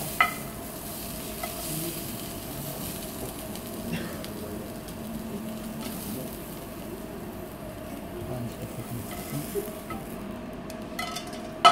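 Steady sizzle of hot oil in a frying pan of julienned carrot and zucchini, with a few light clicks of chopsticks on the pan and plate and a louder clack near the end.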